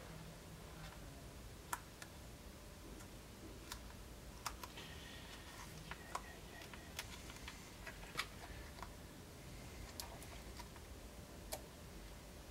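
Faint handling noise of paper and tape being pressed around a small metal handle part: scattered sharp clicks and ticks, with a short paper rustle about halfway through.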